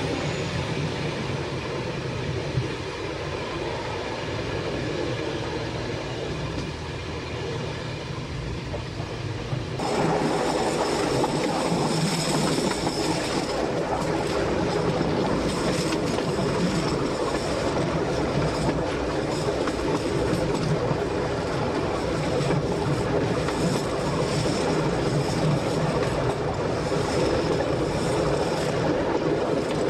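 Diesel train running at speed, heard from the cab: steady running noise with wheels clicking over rail joints. About ten seconds in the sound steps up suddenly, louder and brighter.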